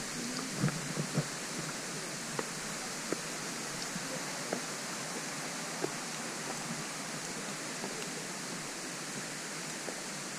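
Steady rush of a waterfall's falling water, with a few faint clicks scattered through, most of them in the first second or so.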